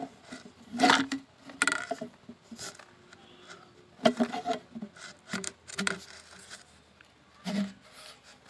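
A hard PVC end cap being pushed and worked onto the glued end of a 4-inch PVC pipe: plastic scraping and rubbing in short, irregular strokes, with a few light knocks.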